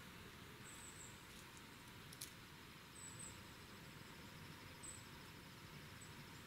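Near-silent woodland quiet with a few faint, very high, thin chirps a second or two apart and one faint click about two seconds in.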